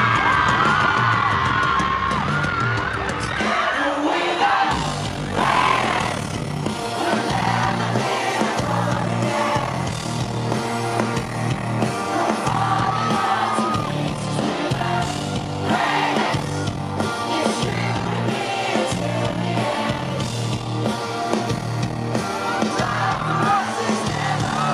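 Live pop-rock band playing with a male lead vocal over a steady drum beat. Near the start, a crowd screams and sings along in high voices.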